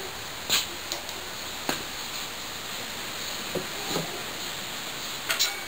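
A few sharp, scattered clicks and knocks over a steady hiss: small metal engine parts and tools being handled while an oil pump is fitted to the engine block.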